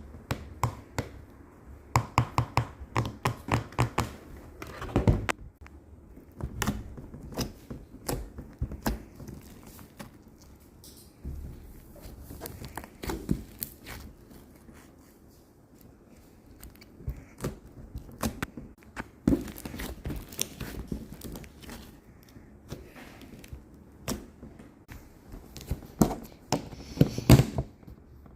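Hands squeezing, poking and stretching slime, making an irregular run of sticky clicks and pops, densest at the start and near the end.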